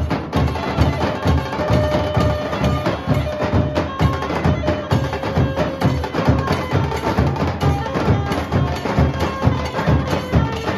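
A Nasik dhol ensemble: many large barrel dhols struck with sticks in a loud, fast, driving rhythm. Held notes that step up and down in pitch sound above the drumming.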